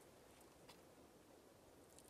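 Near silence: faint outdoor background with no distinct sound.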